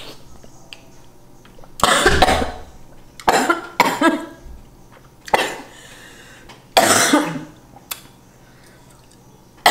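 A woman coughing hard about five times, in separate bouts spread over several seconds: choking coughs from a mouthful of food going down the wrong way.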